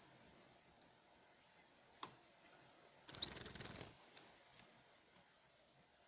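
Cage birds moving in a breeding cage: a faint click, then about three seconds in a brief rustling flurry, like wings or feet in the cage or nest, with a short high chirp inside it.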